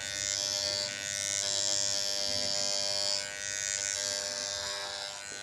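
Corded electric hair clippers running with a steady buzz, the blades giving a brighter cutting sound that swells and fades as they pass through short hair on the scalp. The blades have just been cleaned so they cut well again, a sound the barber calls good.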